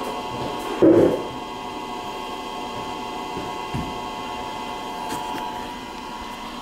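Steady electrical hum with a dull thump about a second in and a lighter knock near four seconds: objects being handled and set down.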